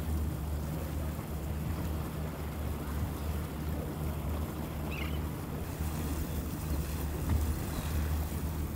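Boat engine running slowly with a steady low drone.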